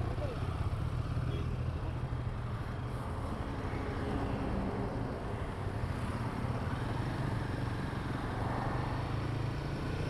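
Royal Enfield Himalayan 450's single-cylinder engine running steadily while the motorcycle is ridden along, a constant low rumble with no gear changes or revving.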